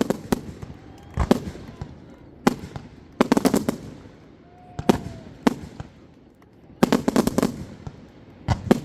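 Fireworks going off: single sharp bangs about every second, with bursts of rapid crackling about three seconds in and again about seven seconds in.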